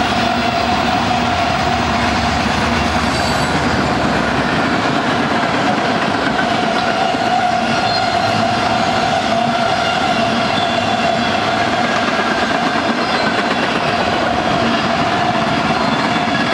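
Freight train's tank cars and covered hoppers rolling steadily past on the rails, with the clatter of wheels over rail joints. A steady ringing tone runs over the rolling noise, and the deep rumble drops away about four seconds in.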